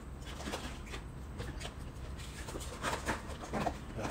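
Eating sounds: chewing, with small clicks and rustles of a fork and plastic take-away trays. They get busier about three seconds in.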